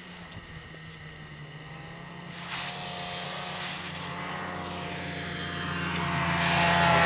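A steady low engine drone, with the hiss of sliding over snow that swells a couple of seconds in and grows loudest near the end.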